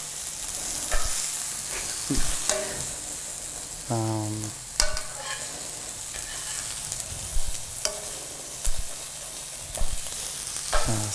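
Goat meat and onions sizzling in a metal pan while a metal spoon stirs them, the steady sizzle broken by sharp clinks and scrapes of the spoon against the pan every second or two.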